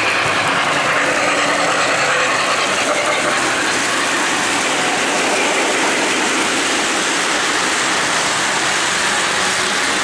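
O-gauge model trains running on three-rail track: a steady noise of wheels and motors.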